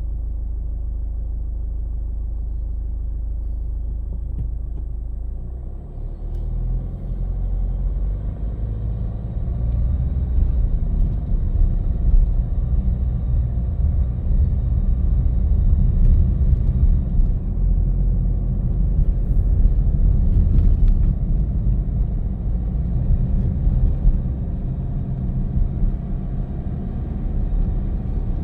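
Car cabin noise: a steady low hum, then a rougher, louder rumble of engine and tyres on the road from about six seconds in, growing louder again around ten seconds.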